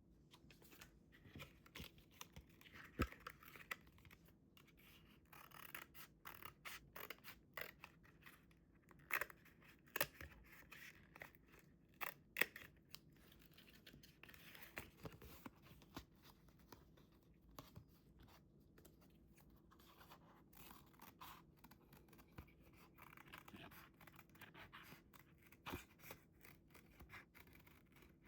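Scissors snipping paper in short, irregular cuts, with soft paper rustling between them; quiet overall.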